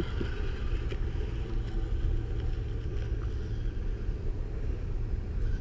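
RC crawler fitted with an electric weed-trimmer blade, running as it chews through weeds: a steady low rumble with a faint motor whine above it.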